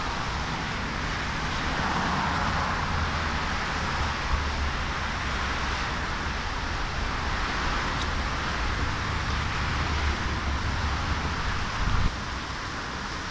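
Steady traffic noise from cars driving along a multi-lane highway below, with a low rumble underneath.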